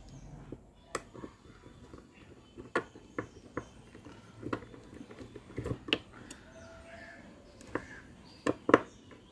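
Irregular sharp clicks and knocks of tools and metal parts being handled during brake repair work, coming at uneven intervals with the loudest as a close pair near the end.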